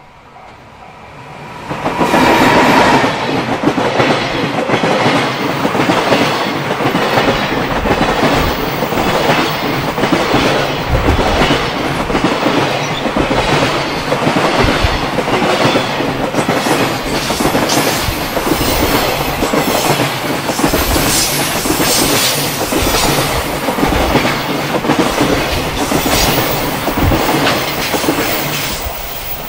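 An EF210 electric locomotive hauling a container freight train passes close by. It is followed by a long string of container flatcars, their wheels clattering steadily over the rail joints. The noise jumps up about two seconds in as the locomotive reaches the camera and eases slightly near the end.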